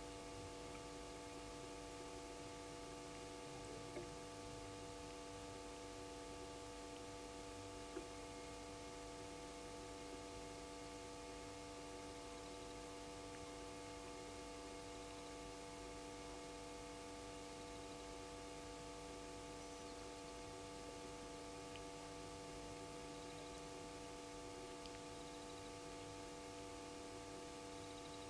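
Faint steady electrical hum of several fixed tones over hiss on the live camera's audio feed, with a couple of faint clicks.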